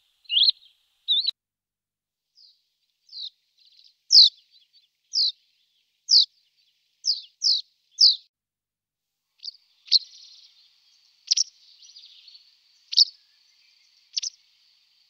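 Field recordings of small songbirds calling: single sharp, high chirps that sweep downward, repeated roughly once a second, taken from several species in turn. A faint steady buzz lies behind the later calls.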